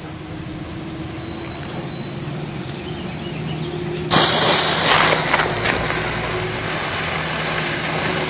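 A smoke ball firework catching about four seconds in and hissing steadily and loudly as it burns and pours out smoke. Before it catches there is only a faint steady hum.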